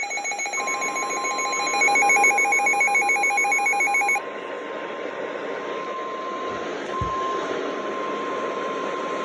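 Weather radio alert: a rapidly pulsing electronic alarm beep for the first four seconds, over the steady 1050 Hz NOAA Weather Radio warning alarm tone, which runs on alone with radio hiss after the beeping stops. A brief low thump sounds about seven seconds in.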